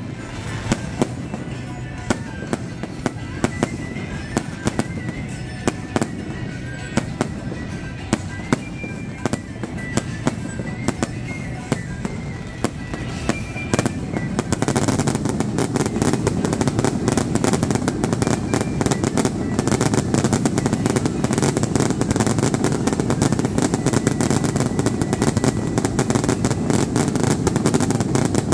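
Aerial fireworks bursting overhead in quick succession, a string of sharp bangs. About halfway in they thicken into a louder, dense barrage of crackling reports that keeps going.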